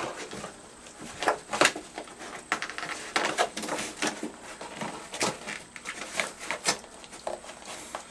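A coyote rooting in a cardboard box and paper-towel toy, making a run of irregular rustling, tearing and crunching noises.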